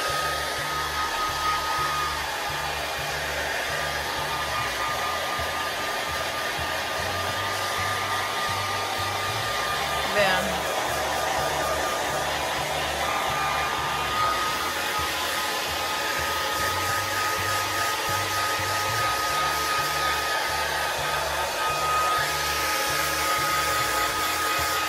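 Handheld hair dryer running steadily on hair as it is brushed out, a constant rush of air with a thin high whine on top.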